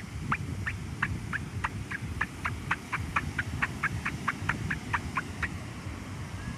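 Dry beach sand squeaking under pressure: a quick, regular run of short squeaks, about three a second, that stops near the end. A steady low rumble of surf or wind lies underneath.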